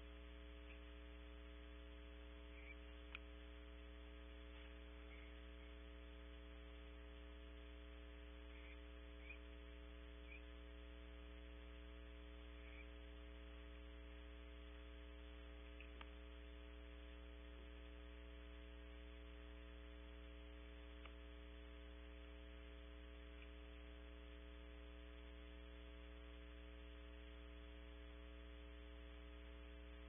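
Steady, faint electrical hum made of several fixed tones, with a few soft ticks now and then, the clearest about 3 and 16 seconds in.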